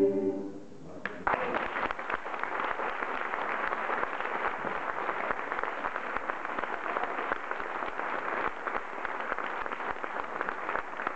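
Audience applause breaking out about a second in, once the last choral chord has died away, then going on steadily.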